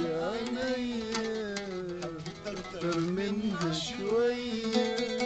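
A man singing an Egyptian song to his own oud: plucked oud notes under a gliding vocal line, with a long held note near the end.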